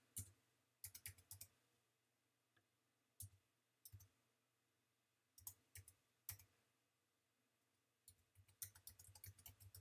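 Faint computer keyboard keystrokes as a command is typed: short bursts of a few key clicks with pauses between, then a quicker run of keystrokes near the end.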